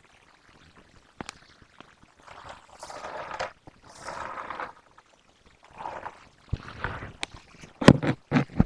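Slime ingredients being poured and handled: several soft pouring swells, then a run of sharp clicks and knocks that grows louder toward the end.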